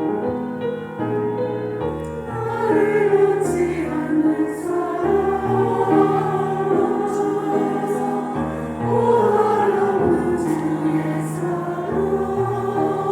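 Church choir singing a slow worship song in parts, with piano accompaniment; the voices swell about two seconds in, over steady low piano chords.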